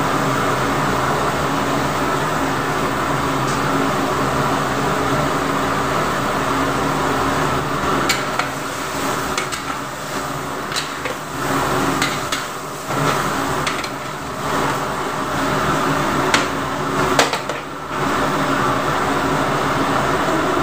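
Metal ladles stirring chunks of beef in an aluminium wok, with scattered clinks and knocks of metal on the pan over the middle stretch, over a steady background hum.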